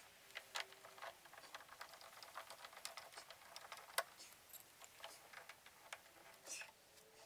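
Faint, irregular small clicks and ticks, with one sharper click about four seconds in.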